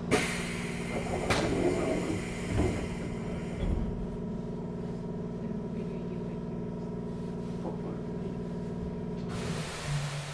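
Inside a Keikyu 1500 series commuter train car standing at a station: the steady hum of its onboard equipment, with a sharp knock at the start followed by a few seconds of rattling and clicks. A hiss starts near the end.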